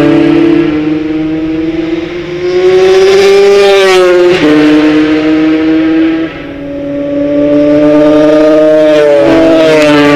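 Classic racing motorcycles passing on the circuit at high revs. The engine note rises and falls, with a sudden drop in pitch about four seconds in as one goes by.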